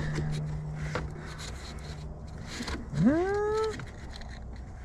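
A man's drawn-out, exasperated groan about three seconds in, rising in pitch and then held for under a second. Before it, a low steady hum fades out and there are a couple of light clicks.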